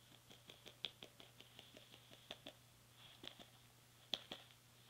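Near silence with faint, irregular light taps: a small plastic Littlest Pet Shop figure handled and hopped across carpet by hand.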